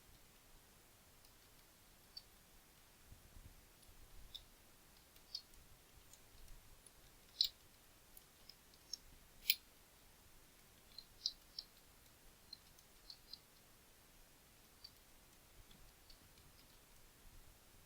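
Faint, irregular clicks of a computer mouse and keyboard as text is edited on screen, with the two loudest clicks about a third and halfway through.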